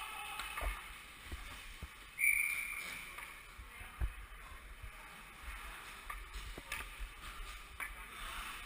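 Ice skate blades scraping and gliding on rink ice, with scattered sharp clacks of hockey sticks and puck. A short, loud high tone sounds about two seconds in.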